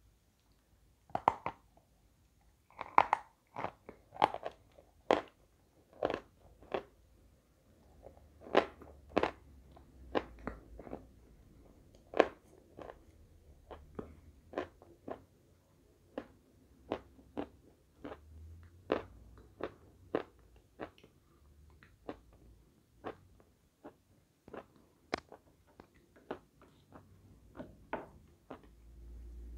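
Soft edible chalk being bitten and chewed: a long run of sharp, crumbly crunches about every half second to a second, loudest in the first third and softer later on.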